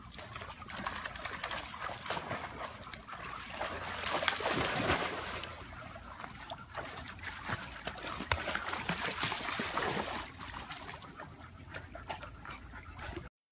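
Pool water splashing and sloshing as animals wade and paddle in the shallows, louder about four seconds in, then cutting off suddenly near the end.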